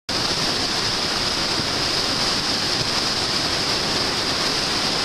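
Whitewater rapid: the steady rush of a river pouring over and around boulders.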